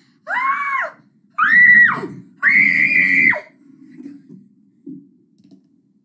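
A boy's voice letting out three high-pitched squeals, each under a second long, the last one the longest. After them only faint small sounds follow.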